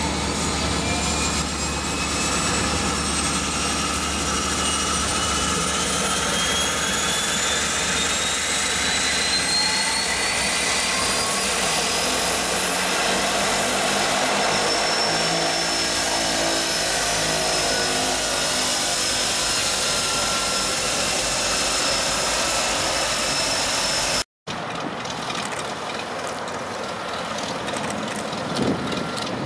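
Turbine engine of a de Havilland Canada DHC-3 Otter floatplane running at the dock, its high whine gliding upward over the first ten seconds and then holding steady. After a sudden cut near the end, a small single-engine floatplane's piston engine is heard taxiing.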